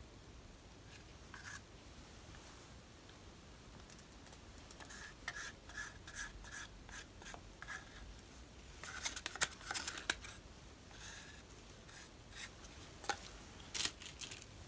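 Light scraping and clicking of art materials being handled. There is a run of short strokes about two a second in the middle, a denser flurry a little later, and a couple of sharper clicks near the end.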